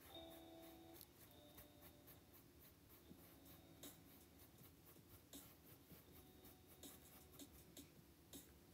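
Faint scratching and dabbing of a paintbrush on stretched canvas, a string of short, irregular strokes.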